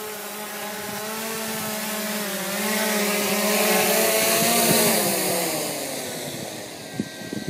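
Autel X-Star Premium quadcopter's motors and propellers buzzing as it comes down to land. The buzz wavers and grows louder to a peak about four to five seconds in, then falls in pitch and fades as the motors slow.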